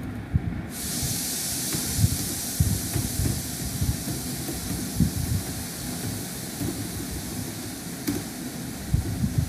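A steady hiss sets in sharply about a second in and holds. Under it are irregular soft low knocks of typing on a computer keyboard.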